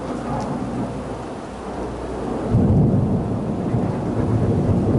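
Rolling thunder over steady rain: the low rumble builds, swells sharply louder about two and a half seconds in, and keeps rumbling.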